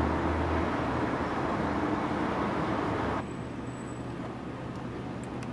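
Road traffic noise: a steady rumble of passing vehicles that drops abruptly to a quieter, steady hum a little over three seconds in.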